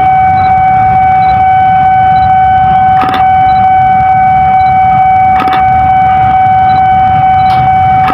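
Passenger train rolling slowly into the station, its steel wheels giving a steady high-pitched squeal over a low rumble, with a sharp clack from the wheels over a rail joint about every two and a half seconds.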